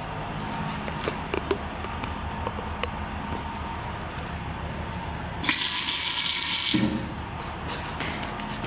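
Faucet on a stainless steel sink running water into the basin for about a second and a half. The water starts and stops abruptly.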